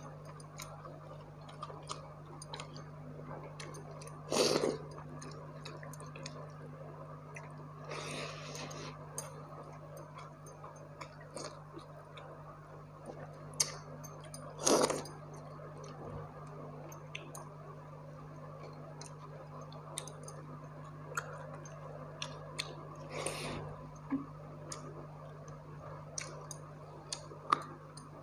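A person eating by hand, chewing crisp fried dried fish and watered rice, with frequent small mouth and finger clicks. There are four louder, noisier mouthfuls of under a second each, about four, eight, fifteen and twenty-three seconds in, over a steady low hum.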